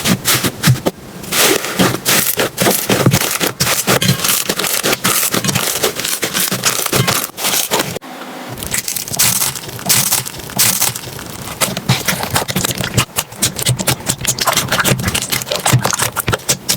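Slime being squeezed and pressed by hand, making dense, rapid crackling and popping clicks, with a brief break about eight seconds in before another round of crackling.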